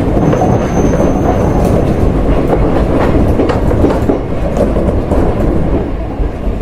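Odakyu 1700 series electric train running along the track, heard from inside the car: a steady low rumble with wheels clicking over rail joints. A thin high whistle sounds for about a second and a half near the start.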